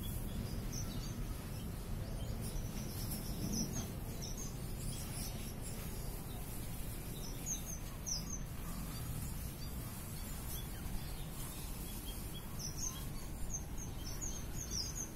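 Small finches, munias, giving short high chirps in scattered bursts, the busiest near the end, over a steady low background noise.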